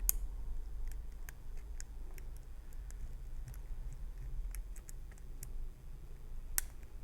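Small, irregular metallic clicks from a pick working the pin stack of a brass challenge lock under tension, with a sharper click near the start and another near the end. The lock sits in a false set on pin 3, and the clicks are pins setting and shifting.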